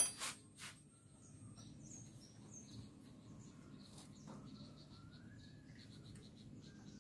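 Faint bird chirps and short whistles over low background noise, with two light clicks in the first second as tools are handled.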